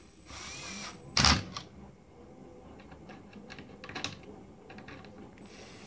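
Cordless drill-driver driving in the screws that hold a plasma TV's power supply board back in place. It runs in short spurts, with a loud burst about a second in and scattered clicks afterwards.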